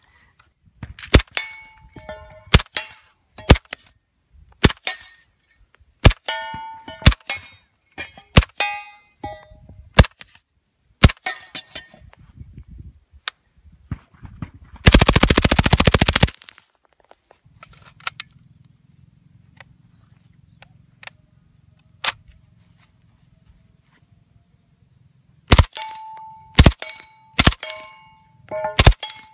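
Integrally suppressed Heckler & Koch MP5SD 9mm submachine gun firing, mostly single shots and short strings, each a sharp crack, some with a ringing metallic ping. About halfway through comes one continuous full-auto burst lasting over a second.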